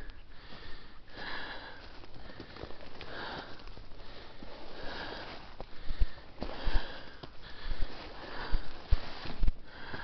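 A hiker breathing hard and rhythmically, about one breath a second, while climbing uphill through dense brush. A few soft knocks of footsteps and brush come through now and then.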